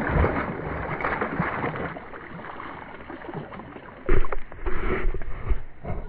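Water splashing and slapping as a hooked northern snakehead thrashes at the side of a kayak, with short knocks, dying down over the first few seconds. About four seconds in come loud bumps and rubbing as a hand presses over the camera.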